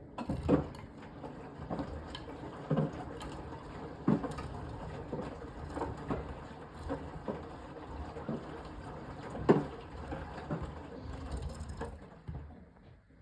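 Beko BM3WT3741W washing machine drum tumbling a wash load, with laundry dropping and thudding irregularly about once a second over a steady swish.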